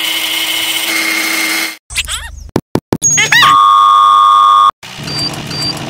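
A steady whine for nearly two seconds, then a flurry of sliding chirps and clicks, then a loud, steady electronic beep lasting over a second, followed by a few short, high beeps.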